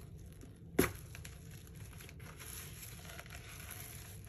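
A sharp single click about a second in as a clutch purse's metal clasp snaps open, followed by faint rustling as the purse is handled.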